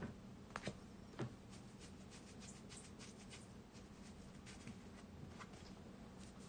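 Faint, scattered clicks and taps of trading cards being handled and laid on a table, a few sharper ones in the first second, over a low steady room hum.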